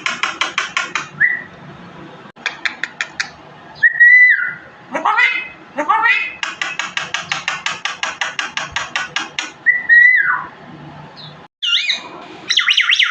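A songbird singing: rapid runs of sharp repeated notes, one long run in the second half, mixed with short whistles that drop in pitch and quick upward-sweeping notes.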